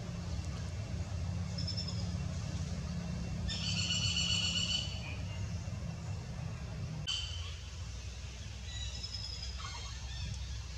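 High-pitched chirping animal calls over a steady low rumble. The loudest call is held for about a second, starting three and a half seconds in, and fainter chirps follow near the end.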